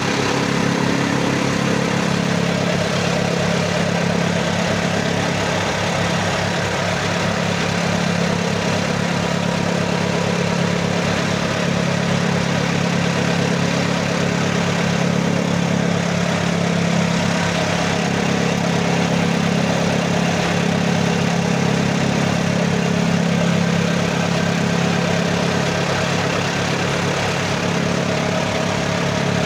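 Tractor-mounted chaff cutter running steadily off the tractor's engine, with an even low pulse, chopping dry stalks fed into it by hand.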